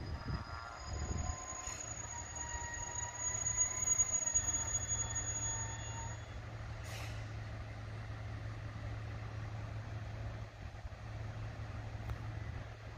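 KiHa 110 series diesel railcar braking to a stop at a platform: its brakes squeal in several high tones for about the first six seconds. A short hiss follows about a second later, and the diesel engine idles with a steady low hum throughout.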